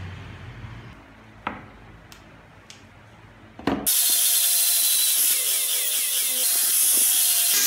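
A couple of light wooden knocks, then about four seconds in a handheld disc sander starts and runs steadily, sanding the wooden car body's roof; the sander is by far the loudest sound.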